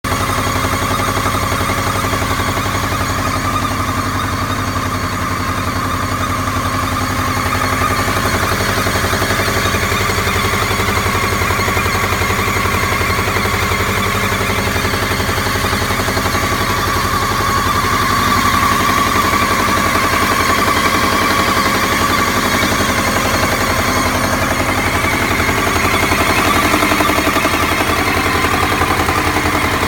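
Subaru EJ205 turbocharged flat-four engine idling with a steady rapid knocking clatter, which the owner puts down to the timing-belt idler rollers.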